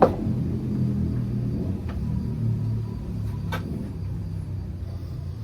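A low, steady rumble like a motor running, with a sharp click at the very start and two fainter clicks about two and three and a half seconds in; it slowly grows fainter toward the end.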